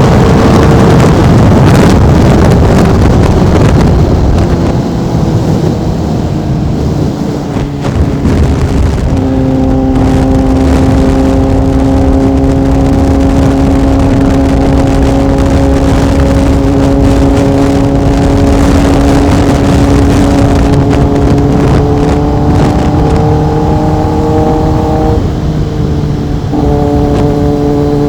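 Sport motorcycle engine heard from the rider's seat. It is loud at first, then eases off with its pitch falling for a few seconds, then holds a steady cruising note that slowly rises. Near the end the note breaks briefly and comes back a step lower, a gear change.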